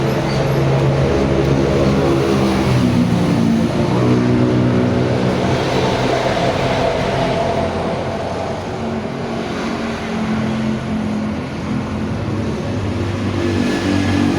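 Background music with held, slowly changing notes over a steady vehicle noise.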